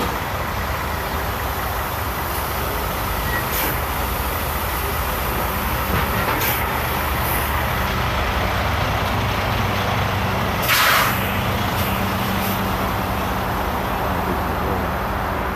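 Semi truck's diesel engine running steadily as it pulls a loaded lowboy trailer slowly past. A few short air hisses come through, and a longer, louder air-brake hiss about eleven seconds in.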